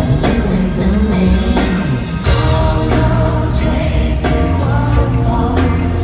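Live R&B/pop band, with drums, bass, keyboards and guitar, backing female lead singers, amplified through a concert PA and heard from the audience seats.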